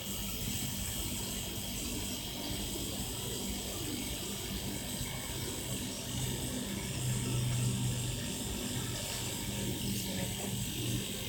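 Salvaged refrigerator compressor running with a steady hum, pumping air into a bicycle tyre.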